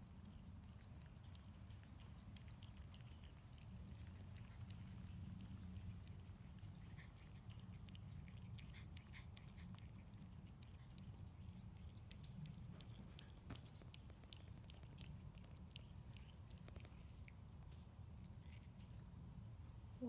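Faint wet smacking and clicking of a cat chewing soft wet food and licking a stainless-steel dish, coming thickest about halfway through, over a low steady rumble.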